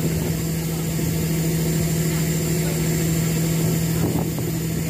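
Mechanised fishing boat's inboard diesel engine running steadily at an even pitch.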